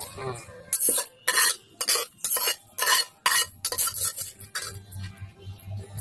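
A metal spoon clinking and scraping against a metal pot and basin in a quick run of sharp strikes, about two a second, as boiled bamboo shoots are scooped out. The strikes give way to softer scraping near the end.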